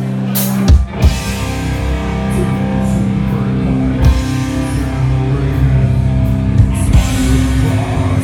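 Heavy metal band playing live, with distorted electric guitars and a drum kit, recorded through a smartphone microphone. A held chord gives way to two heavy hits about a second in, and the full band then plays on.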